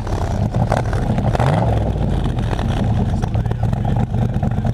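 Car engine running just after starting, its low note flickering unevenly, with a brief rise in revs about a second and a half in. The owner suspects a misfire.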